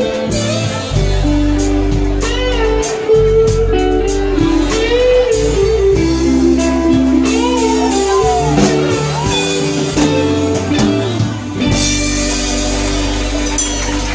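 Live band playing a slow rock ballad: electric guitar leads with bending notes over bass guitar and keyboards.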